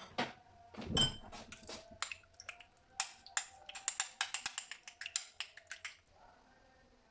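A quick, irregular run of light clicks and taps of small hard objects being handled, with a heavier knock about a second in; the tapping stops about six seconds in, leaving a faint steady hum.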